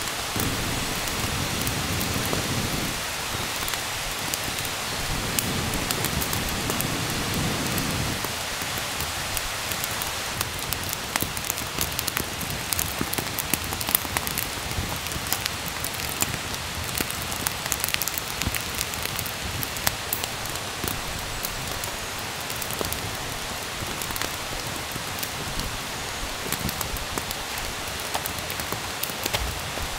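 Steady rain falling, with sharp drop ticks scattered through it that come more often from about ten seconds in.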